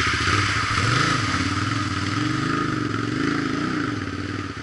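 Dual-sport motorcycle engine revving up and down several times as the bike ploughs through a deep water hole on a trail.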